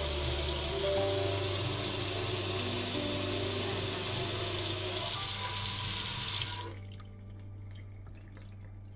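A stainless pull-down kitchen faucet runs water in a steady stream into a stainless steel sink. About two-thirds of the way through it shuts off abruptly, leaving a few faint drips.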